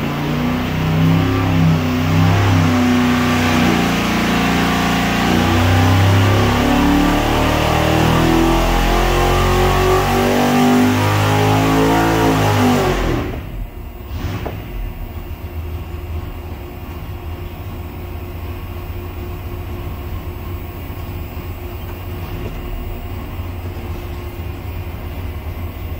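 Carbureted racing engine on an engine dynamometer making a wide-open-throttle pull, its pitch rising steadily as it climbs under load from about 3,300 to about 6,600 rpm. About 13 seconds in, the throttle closes and the engine drops off suddenly to a steady idle at about 1,300 rpm.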